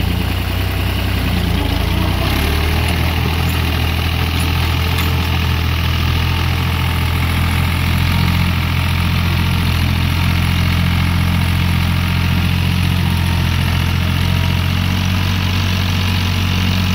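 Fiat 480 tractor's diesel engine running steadily under load as it pulls a tined harrow through tilled soil.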